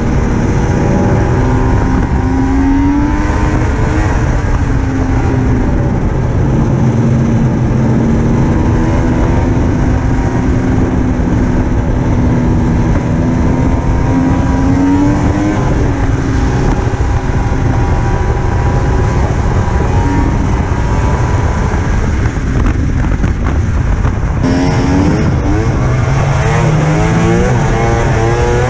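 Polaris Ultra RMK snowmobile's three-cylinder two-stroke engine running under way on the trail, its pitch rising and falling as the throttle changes.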